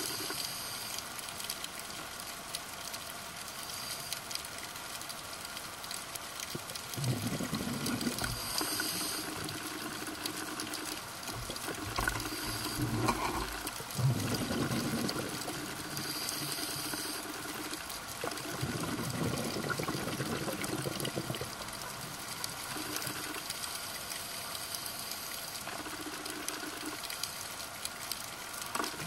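A scuba diver's regulator breathing underwater: bursts of exhaled bubbles gurgling every few seconds, with short hissing inhales between them, over a steady underwater hiss.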